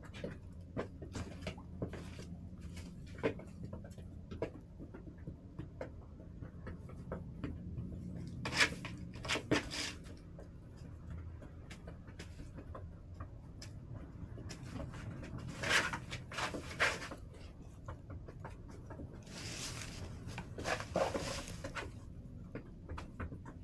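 Chickens pecking and scratching: scattered light taps and rustling, with a few louder knocks and a short burst of rustling about twenty seconds in.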